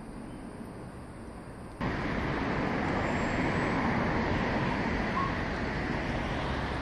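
Quiet ambience with a faint, steady high-pitched hum, cut off abruptly about two seconds in by louder, steady city street noise: the hum of road traffic.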